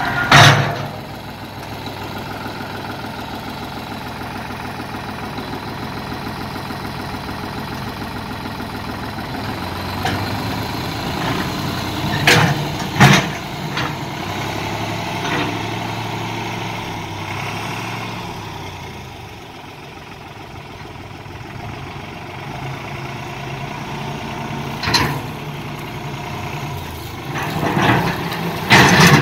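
New Holland tractor's diesel engine running under load as its front-loader bucket pushes rocks. Sharp knocks of stone against the steel bucket come at the start, twice near the middle and several times near the end. The engine eases down about two-thirds through and picks up again.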